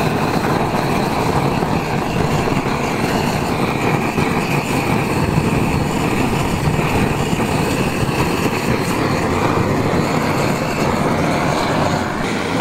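Handheld butane blowtorch running with a steady rushing hiss as its flame browns shredded cheese on lobster halves.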